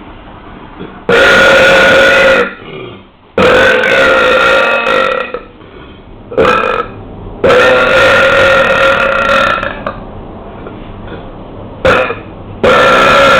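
A person belching loudly, a run of long drawn-out burps each lasting one to two seconds, four long ones with two short ones between them.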